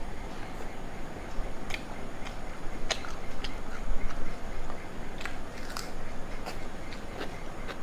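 Close-miked chewing of rice and chicken, with irregular sharp, wet mouth clicks and smacks.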